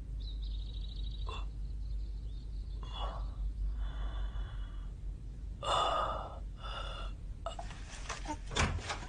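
A man breathing hard in pain, with several short gasps and strained breaths a second or so apart; the strongest comes about six seconds in.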